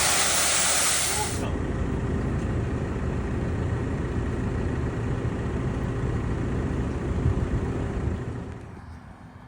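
Loud rushing hiss of wind on the microphone, then a sudden change to a tractor engine running with a steady low rumble and a faint hum, which drops away about a second before the end.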